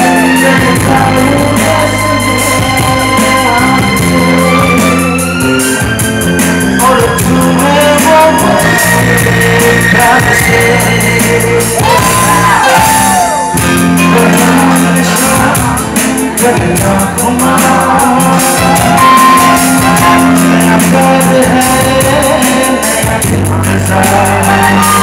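A live song: a man singing into a microphone over a band with guitar and drums, with shouts and whoops from the crowd.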